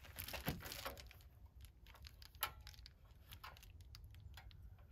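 Light clicks, knocks and rustling from a small butane heater being handled and its controls worked, with one sharper click about halfway through.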